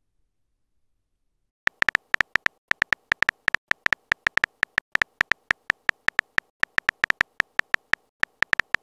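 Keystroke click sounds of a texting-story app's on-screen keyboard as a message is typed, one short pitched tick per key. The clicks start about two seconds in and run at several a second, unevenly spaced like typing.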